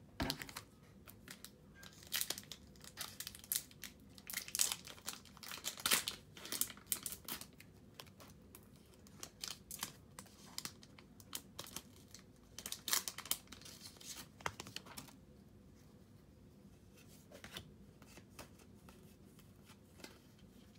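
A crinkly wrapper being torn and crumpled in repeated bursts of crackling rustle, which die down after about fifteen seconds to a few faint clicks and rustles.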